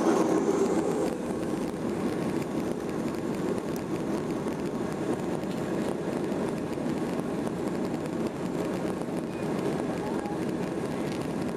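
Boeing 737-800's CFM56 turbofan engines at taxi power and the airframe rolling on the taxiway, heard from inside the cabin as a steady rumble.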